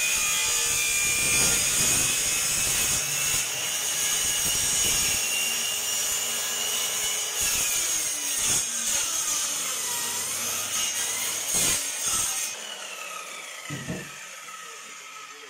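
Electric power saw cutting wood, its motor whine dipping in pitch as the blade loads up in the cut and rising again; it starts abruptly and winds down about three-quarters of the way through, leaving a quieter tail.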